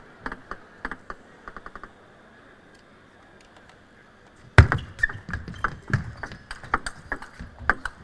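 Table tennis ball being bounced a few times before a serve, a short pause, then a rally starting about halfway through: the ball knocking sharply off the rackets and table at an uneven pace, the opening hit the loudest.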